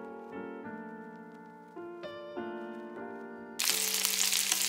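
Piano background music. About three and a half seconds in, the loud sizzle of boiled potatoes frying in bubbling butter in a pan cuts in suddenly, with the music carrying on beneath it.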